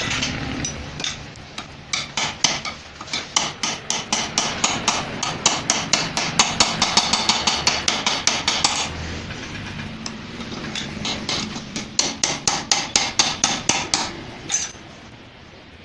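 Hammer striking metal parts of a Bajaj Chetak scooter engine in quick repeated blows, about three a second, in two runs with a pause of about two seconds between them.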